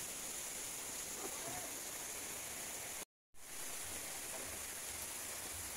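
Steady outdoor night ambience at a fishing pond: an even hiss with a high, continuous band on top. It drops out completely for a split second about three seconds in, where the video is cut.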